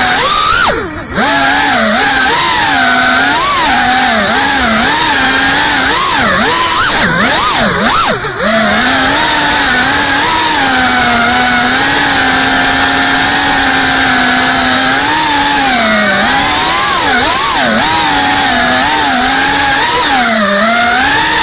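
FPV quadcopter's brushless motors and propellers whining, the pitch rising and falling with throttle as it manoeuvres. Brief throttle cuts drop the sound for a moment about a second in and again about eight seconds in.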